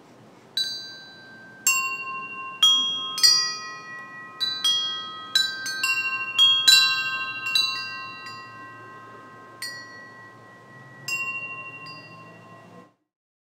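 Metal chimes struck at irregular intervals, about fifteen strikes, their clear ringing tones overlapping and dying away slowly, then cut off abruptly near the end.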